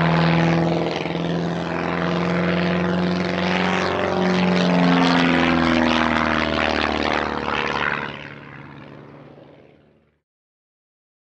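Propeller-plane engine drone, a steady pitched hum with a rushing noise over it, shifting pitch slightly a few times. It fades away from about eight seconds in and stops at about ten.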